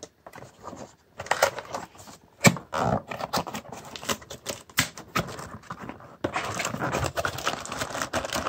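A cardboard shipping box being opened by hand: its taped flaps tearing and scraping, with many sharp clicks. About six seconds in, this gives way to a steady crinkling of the plastic bag around the item inside.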